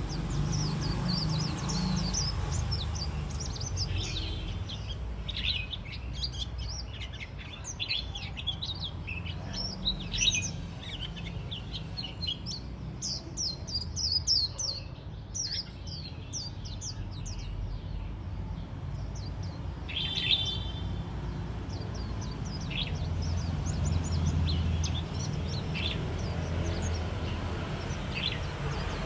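White-eyes twittering: quick runs of thin, high, falling notes in clustered bursts, thinning out after the first half, with one louder, fuller call about two-thirds of the way through. A low steady rumble runs underneath.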